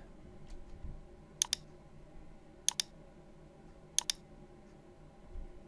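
Computer mouse button clicked three times, about every 1.3 s, each click heard as a quick pair of snaps as the button goes down and comes back up.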